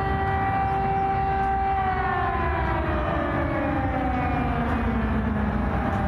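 Civil defence air-raid siren sounded as a test of the public warning system: a steady wail that, about two seconds in, starts to wind slowly down in pitch.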